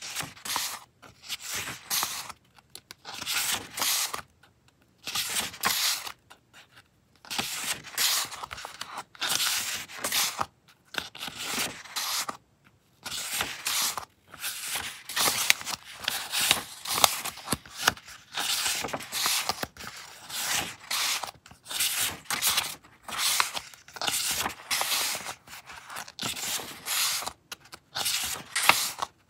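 Sheets of printed paper being handled and shuffled one after another: a steady run of short rustles and crinkles as pieces are picked up, flipped and laid down, with brief pauses between them.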